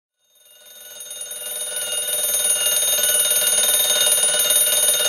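Alarm clock ringing: a rapid, continuous ringing that fades in over the first two seconds or so and then holds steady.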